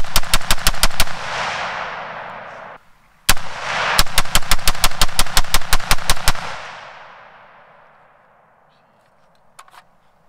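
PSA AR-10 semi-automatic rifle in .308 with a tanker-style muzzle brake, fired rapidly to empty a 25-round magazine: a quick string of about eight shots, a short pause, a single shot, then a run of about fifteen more at roughly six to seven shots a second. Each string trails off in a long rolling echo.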